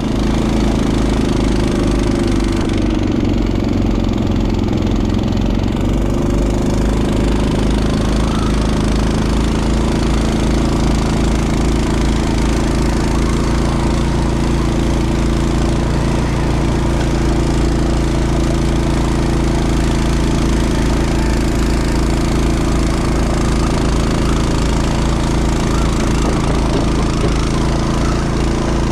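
Honda snowblower's single-cylinder four-stroke engine running steadily, with a slight dip in pitch a few seconds in.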